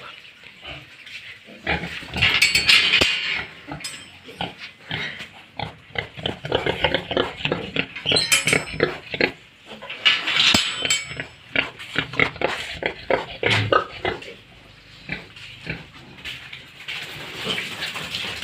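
Pigs grunting and squealing, mixed with short knocks and clatters, with the loudest bursts about two seconds in and again about ten seconds in.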